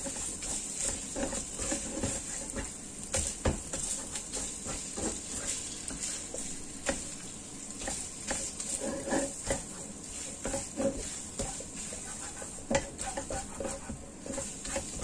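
Minced pork sizzling in oil in a nonstick pan, with a spatula stirring and breaking it up: a steady frying hiss under irregular scrapes and taps of the spatula on the pan.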